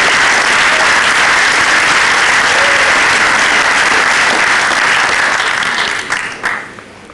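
Audience applauding steadily, the clapping dying away about six seconds in.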